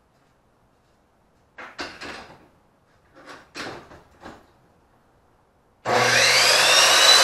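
A few short knocks and clatter of a rifle being set down and handled on a miter saw's table, then, near the end, the electric miter saw switches on and its motor whine rises in pitch as the blade spins up.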